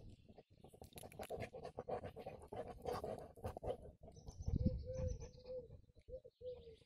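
Magyar vizsla sniffing and panting close up, with quick snuffles and grass rustling. A soft thump comes about halfway through, followed by a run of short low-pitched calls near the end.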